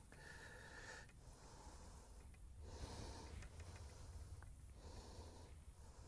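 Faint breathing close to the microphone, a soft breath about every second.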